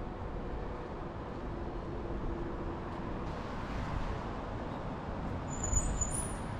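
Steady street traffic noise from cars driving on a city road, with a louder low rumble of a passing vehicle about six seconds in, and a few brief, very high-pitched squeaks at the same moment.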